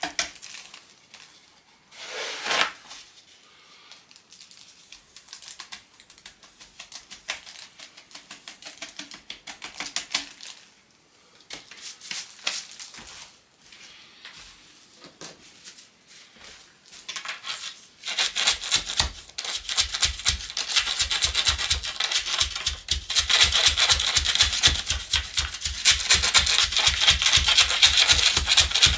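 Dry epoxy-sand mix being filled and compacted into extruded aluminium profiles: scattered scrapes and taps, then from about two-thirds of the way in a louder, fast, steady train of strokes.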